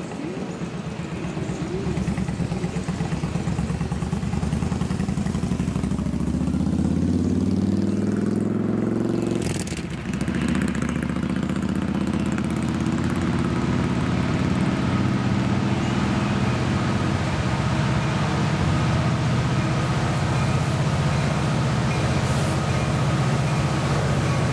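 Approaching freight train led by a wide-cab EMD diesel locomotive, its engine running with a steady low throb that grows louder over the first few seconds. An engine sound rises in pitch from about six seconds in and breaks off suddenly near ten seconds.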